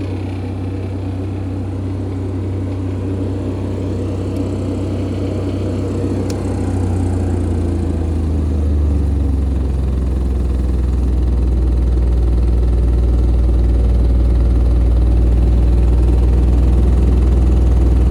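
Kubota D722 three-cylinder diesel engine of a Denyo TLW-300 engine welder running steadily; its low drone deepens and grows louder from about six seconds in.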